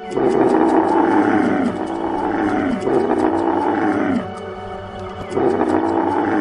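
A camel bellowing: four long, loud calls, each falling in pitch at its end, with a pause of about a second before the last, over background music.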